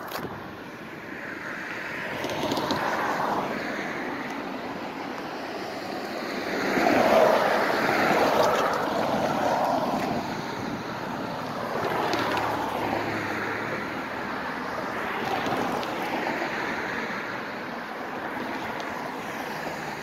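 Road traffic passing the crossing: tyre and engine noise of several vehicles swelling up and fading away one after another, the loudest about a third of the way in.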